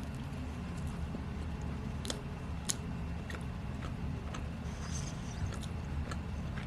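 A person chewing a mouthful of donut, with scattered small clicks of mouth and food over a steady low hum.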